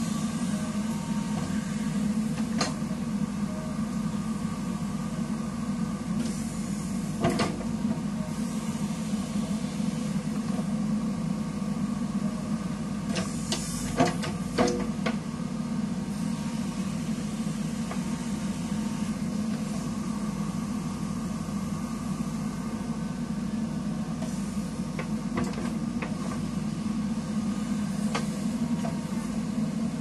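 Diesel engine of a JCB 3DX backhoe loader running at a steady pace while the backhoe works, with occasional sharp clanks from the arm and bucket, the loudest cluster about halfway through.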